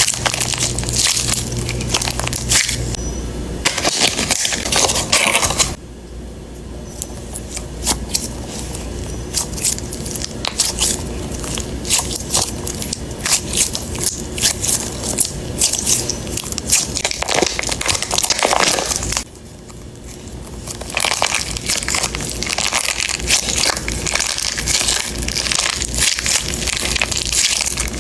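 Dense, irregular crinkling and crackling of plastic packaging being handled and opened, with the level dropping sharply twice.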